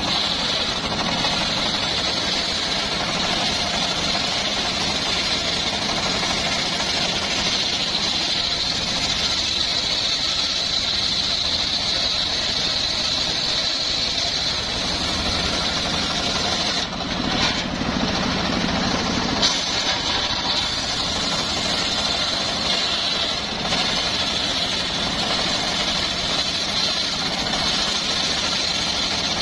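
Homemade circular sawmill ripping a large sengon (albasia) log into planks: the big circular blade cuts steadily through the wood with a high hiss, over the engine that drives it. About two-thirds of the way through, the high cutting hiss briefly drops away and the lower engine sound comes up.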